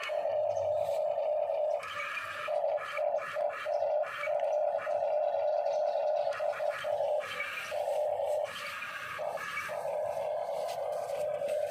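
Small electric gear motors of a remote-control toy excavator whirring in short spurts, starting and stopping many times as the controls are worked.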